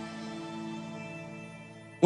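Soft background music with sustained chords, slowly fading.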